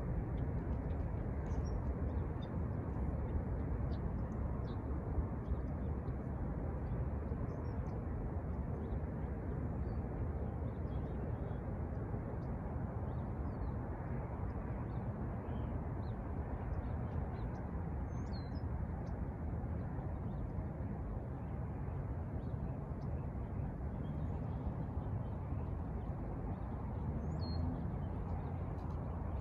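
Steady low outdoor rumble with scattered faint bird chirps and calls over it; the crossing's bell is silent.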